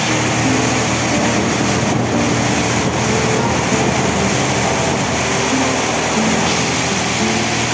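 Touchless automatic car wash spraying water over a car: a steady, hissing rush that keeps up without a break.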